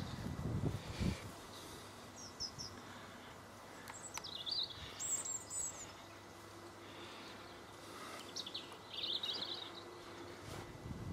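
Small birds chirping now and then over a faint outdoor background, with a few soft footfalls on grass in the first second.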